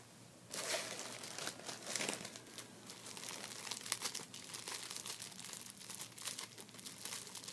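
Clear plastic wrapper crinkling and crackling irregularly as it is handled and pulled open, starting about half a second in.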